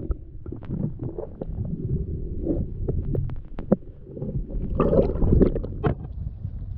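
Underwater sound through a camera held below the lake surface as a hand holds and lets go of a bass: a low, muffled rumble of moving water with scattered clicks and knocks, growing louder about five seconds in.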